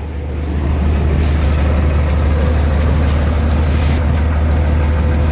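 Large intercity bus diesel engine idling with a steady low hum. A rush of noise builds from about a second in and cuts off suddenly near four seconds.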